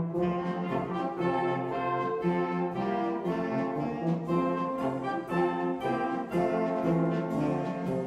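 Amateur wind band playing, brass and woodwinds over a drum kit keeping a steady beat.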